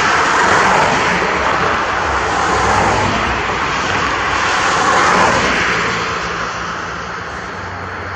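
Boeing 757-200 jet engines on final approach, a steady rushing noise with a faint low hum underneath, easing off a little over the last few seconds.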